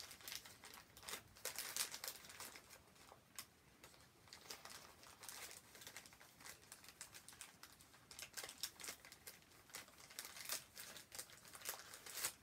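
Faint crinkling and crackling of a thin plastic packaging bag handled in the hands, in irregular runs of quick crackles, as small toy balls are worked out of it.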